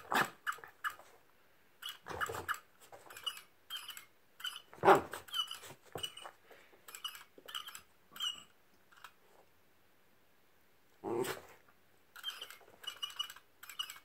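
Small dog giving a few short barks and growls at a toy robin, spaced several seconds apart, with fainter short high chirps between them.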